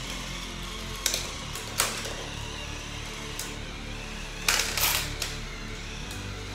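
Lego combat robots fighting: a steady motor whir from the spinning weapon, broken by sharp plastic clacks as it strikes the white wedge robot, once about a second in, again near two seconds, and a quick cluster of hits a little past halfway.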